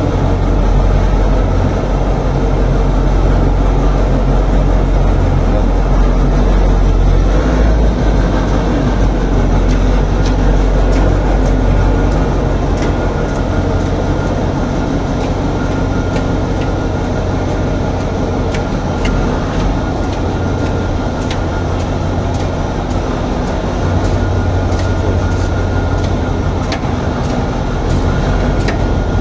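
Kirovets articulated tractor's diesel engine running steadily with a deep low hum as the tractor pulls slowly out of the workshop bay, with scattered light clicks over it from about ten seconds in.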